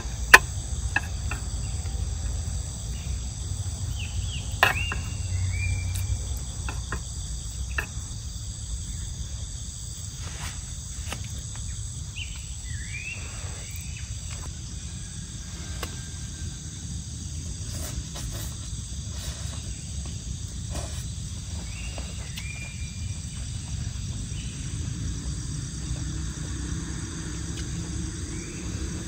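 Insects droning steadily in a high-pitched chorus, over a low rumble, with scattered clicks and knocks and a few short falling chirps.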